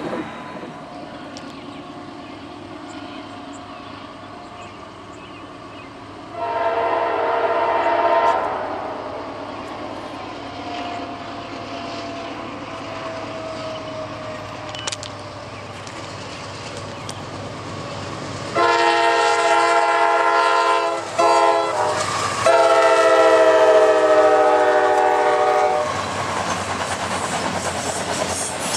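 Freight locomotive air horn sounding a chord of several notes as the train approaches the grade crossing. One long blast comes about six seconds in, then a long, a short and a long blast from about eighteen seconds. Near the end the autorack cars roll past with steel wheels clattering over the rail joints.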